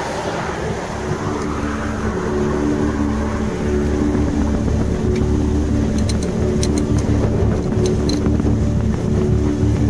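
Strong wind buffeting the microphone in a deep, uneven rumble that grows louder, over a steady low hum with a few held tones that come and go.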